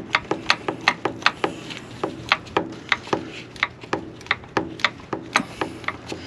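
Ratchet wrench clicking steadily, about three to four clicks a second, as it turns a starter mounting bolt.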